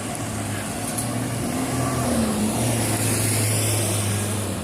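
Car driving along a road: a steady low engine hum under even road noise, with a slight rise and fall in pitch midway.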